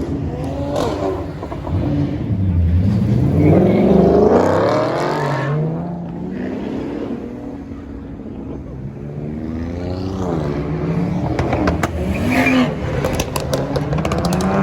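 A performance car engine revving, its pitch climbing and falling twice. Near the end comes a rapid run of exhaust crackles and pops.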